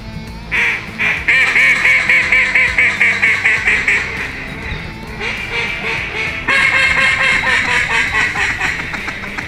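Mallard duck calls blown in loud, rapid runs of hen-style quacks, about seven a second, each run fading as it goes. A fresh run starts about five seconds in and picks up again, denser and louder, near six and a half seconds, with calls overlapping.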